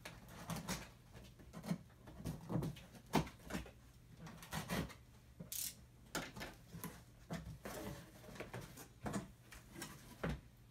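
Cardboard shipping box being opened by hand: the packing tape is slit and the box is scraped and handled, giving an irregular string of light knocks, taps and rubbing sounds, with the flaps folded open near the end.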